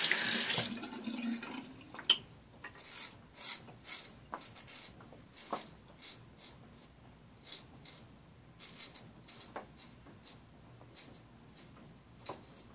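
A running tap stops about half a second in; then a straight razor scrapes stubble on the jaw and neck in short, irregular strokes, each a brief dry rasp.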